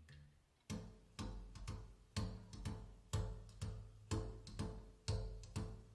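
Recorded music: a bass line stops, and after a brief pause a new track begins with a steady beat of drum hits over bass, about two hits a second.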